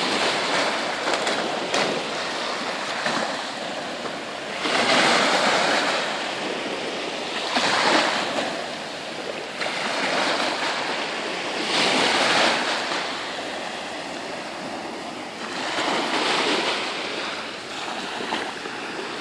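Small sea waves breaking and washing up on a sandy shore, the surf swelling about every four seconds.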